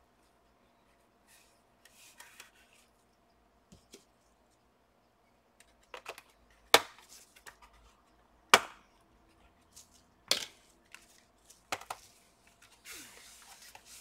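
About five sharp plastic clicks and knocks from a laptop's plastic case being handled, spread over a few seconds with quiet gaps between them. Near the end comes a scuffing slide as the laptop is turned over on a desk mat.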